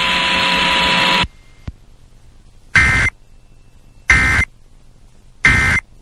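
A steady noisy hiss cuts off about a second in. Then come three short, identical warbling data bursts, about a second and a half apart: the Emergency Alert System end-of-message (EOM) digital code that closes a relayed flash flood warning.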